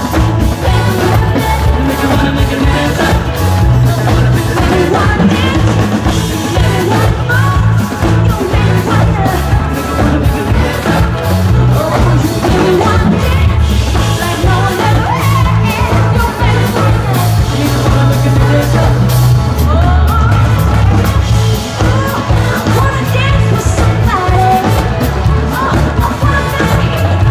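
Loud live pop-rock music with a woman singing lead over drums and heavy bass, picked up on a phone in the crowd.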